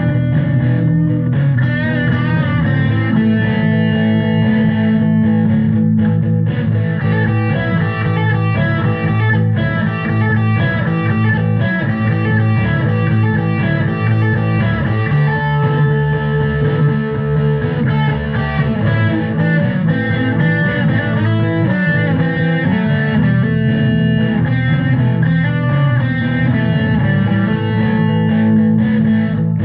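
Background music led by electric guitar with bass, playing steadily.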